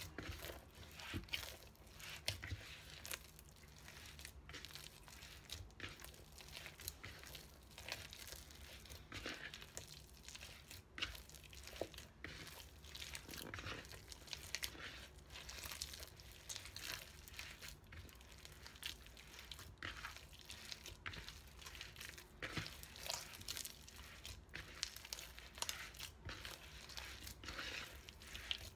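A hand kneading soft bakpia dough in a plastic bowl: faint, uneven squishing and scraping strokes, about one or two a second.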